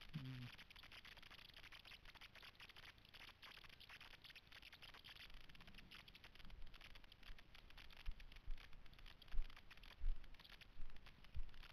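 Faint steady hiss with a fine crackle on a GoPro camera's microphone. From about six seconds in, irregular low thumps come as the camera is moved about on the rock.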